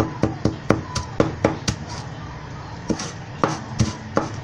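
Large kitchen knife chopping on a wooden cutting board, finely mincing: quick, even strokes about four a second, then a few slower, spaced strokes in the second half.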